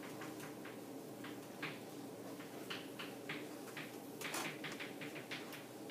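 Faint, irregular short scratches and taps of writing, a quick stroke every fraction of a second, over a steady low room hum.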